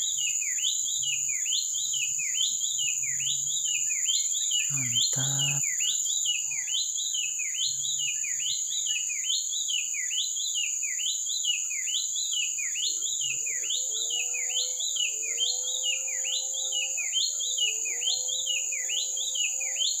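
White-chested babbler singing an unbroken run of clear falling whistles, about three every two seconds, with no pause. A steady high insect drone runs beneath, and from about two-thirds of the way in a second, lower bird calls in short level notes.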